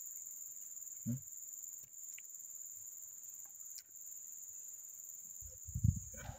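Steady, high-pitched insect chorus droning in the forest. A short low voice sound about a second in, and low rumbling knocks near the end.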